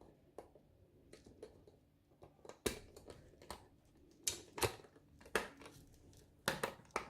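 Sharp clicks and knocks of a multimeter's plastic case parts and small fittings being handled during reassembly. A few faint clicks, then louder ones in quick clusters from about two and a half seconds in.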